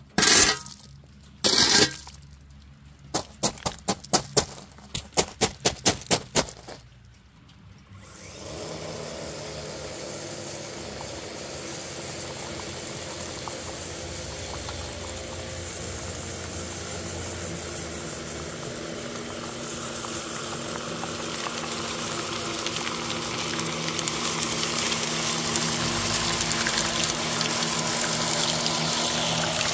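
Sharp clacks and knocks of ballast stones, a quick run of them in the first few seconds. About eight seconds in, a motorized rotating-brush ballast regulator starts running on the track and grows steadily louder as it comes closer, its brush sweeping the stone ballast.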